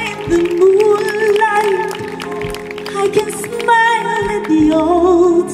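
A woman singing live with a symphony orchestra accompanying her. Her voice carries long, wavering notes over the strings.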